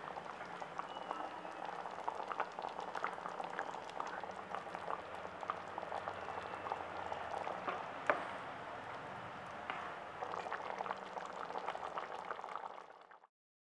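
Thick, besan-thickened sambar boiling gently in a pan, its bubbles popping in a steady run of small plops, with one louder pop about eight seconds in. The sound cuts off suddenly near the end.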